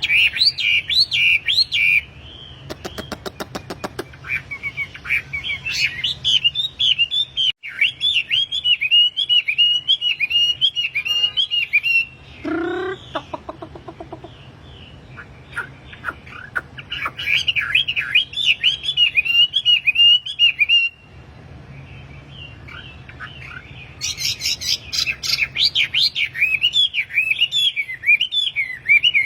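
A wambi bird singing in phrases of rapid, high twittering chirps a few seconds long, with short pauses between them. This is the lively, full song ("gacor") used as a master recording to draw song from other wambi birds. A single falling, pitched sound comes in a pause about twelve seconds in.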